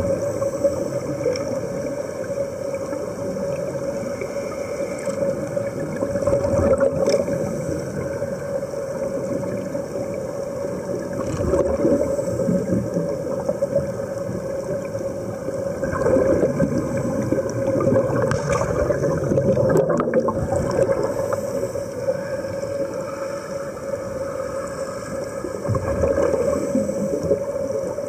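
Underwater sound: air bubbling and gurgling from sea-walking diving helmets, over a steady drone. The bubbling swells and fades several times.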